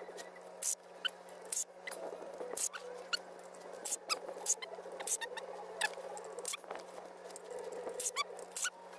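Hand ratchet with a 10 mm socket clicking in short irregular runs, with small squeaks, as the oil pan bolts are worked loose.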